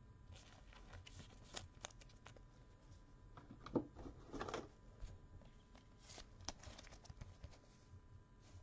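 Faint rustling of plastic and light clicks as a trading card is handled in gloved hands, slid in a soft plastic sleeve and into a rigid plastic top loader. There is one sharper tap a little under four seconds in, followed by a brief rustle.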